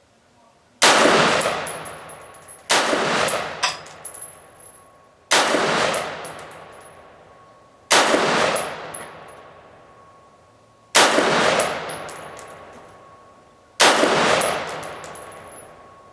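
Six single rifle shots from a retro AR-15-style 601 build chambered in 5.56 mm, fired at an unhurried pace about two to three seconds apart, each with a long echo dying away behind it.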